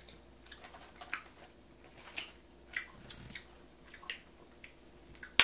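Mouth chewing a mouthful of loaded nachos, with wet smacks at irregular moments, about one a second, and one sharper click near the end.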